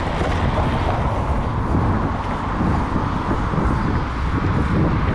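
Wind rushing over the microphone and tyre and road noise from a bicycle being ridden, a steady, loud rumble.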